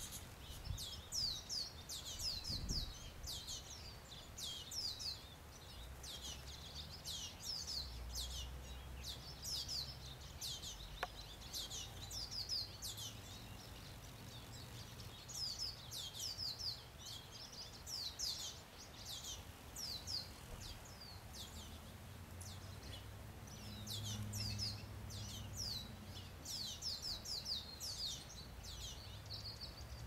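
Small songbirds chirping over and over, many short high chirps that each slide down in pitch, over a faint low background hum.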